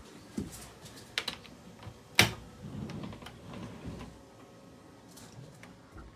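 A few scattered clicks and knocks, the loudest about two seconds in, over faint low rumbling.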